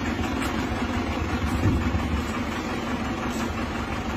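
Buick Excelle's engine idling steadily, a low even rumble.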